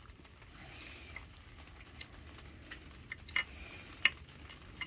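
Scattered light metallic clicks and taps of a steel pick prodding the spool valves in a Honda B7TA automatic transmission's valve body, testing whether each valve slides freely or is stuck. The loudest clicks come about three and four seconds in.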